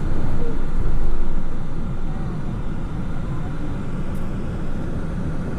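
Road and engine rumble heard inside a moving vehicle's cabin, steady and low, somewhat louder for the first second or so.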